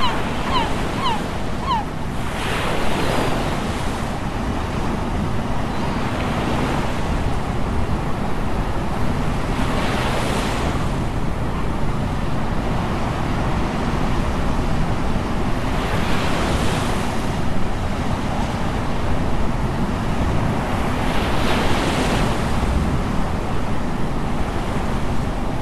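Ocean surf washing onto a beach, swelling and falling every few seconds, over a steady rumble of wind on the microphone. A bird calls in a quick run of short notes during the first two seconds.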